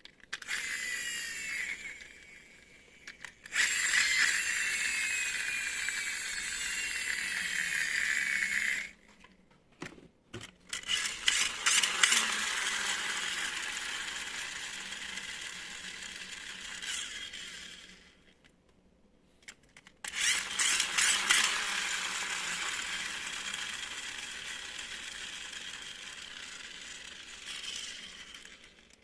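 Small electric motor and plastic gears of a toy RC car running in bursts of several seconds, with short pauses between, and a whine that drops slightly in pitch during one run.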